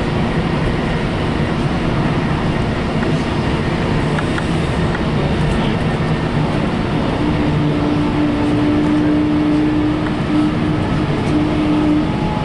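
Passenger train running along the line, heard from inside the coach: a steady rumble of wheels and track. A steady hum comes and goes over it in the second half.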